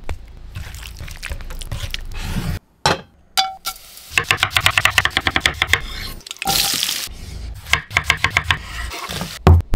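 A quick sequence of close-miked cooking sounds: spiced raw chicken being mixed in a wooden bowl, then a fast run of crackles as cumin seeds and cardamom fry in hot oil in a pan, then a knife slicing a tomato on a wooden board, ending in a low thump.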